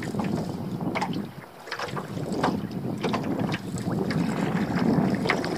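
Small waves lapping and slapping irregularly against the hull of a small open boat, over a steady rush of wind on the microphone.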